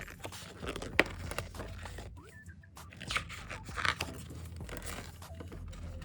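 Paper rustling and crinkling as calendar pages are handled and turned, with a sharp click about a second in.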